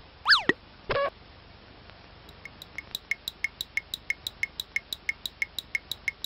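Comedy sound effects: a quick falling whistle glide, a sharp knock with a short ring about a second in, then a steady run of light pitched ticks, about five or six a second, that swell at first and keep going.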